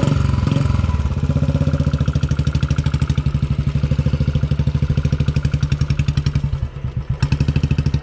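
Single-cylinder motorcycle engine, just started, idling with an even, rapid pulsing beat; the beat falters briefly about seven seconds in, then picks up again.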